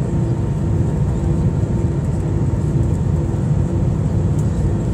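Steady cabin noise inside an Airbus A319 on its landing approach: the rumble of the jet engines and the rush of air past the fuselage. A faint hum wavers in and out over it.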